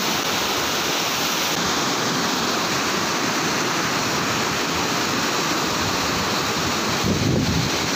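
Fast, swollen muddy stream rushing over rocks, a loud steady rush of water.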